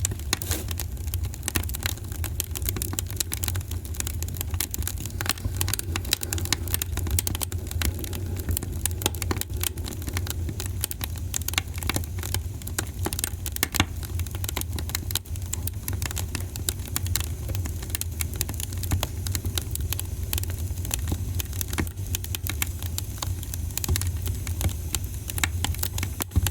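Wood fire in a fireplace crackling and popping continuously with many irregular sharp snaps, over a steady low rumble.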